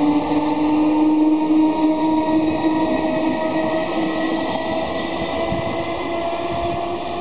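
Great Northern electric multiple unit running past, its traction motors giving a whine that rises slowly in pitch over the rumble of the wheels on the rails.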